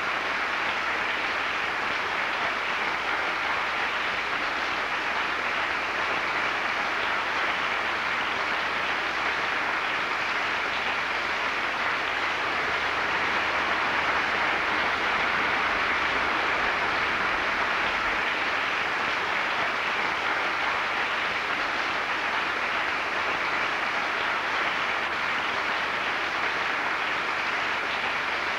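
Audience applauding steadily, a dense even clapping that holds without a break.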